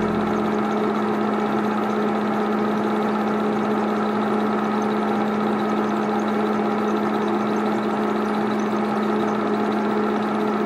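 8mm film projector running steadily: an even motor hum with the fast, regular clatter of the film spooling through the mechanism.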